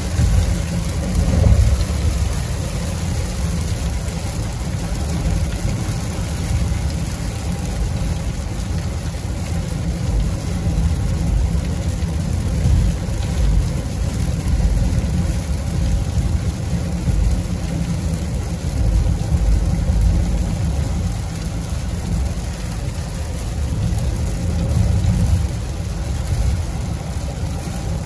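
Inside a car driving on a rain-soaked highway: a steady low rumble of tyres and engine, with a hiss of rain and road spray.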